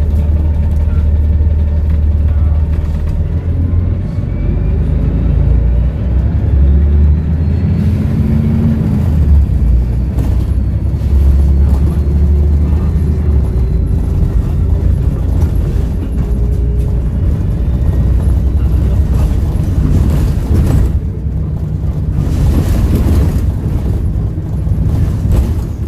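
Volvo B7RLE bus's six-cylinder diesel engine running under way, a heavy low rumble that rises and falls in strength, with faint whining pitches gliding up and down from the turbocharger whistle.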